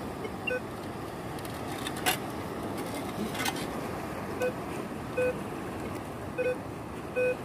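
Metal detector giving short, single-pitched beeps as its coil is swept over sand and rocks: five beeps, one near the start and four in the second half, signalling metal below. Two sharp clicks in the first half, over steady background noise.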